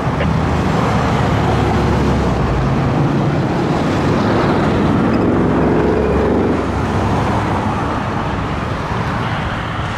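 Heavy diesel engine of a fire water tender pulling away under load amid road traffic, its note strongest about halfway through and then easing off as it moves away.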